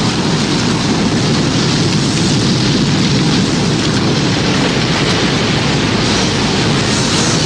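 Tornado storm sound effect: a steady, dense rush of wind and rain noise, with no siren.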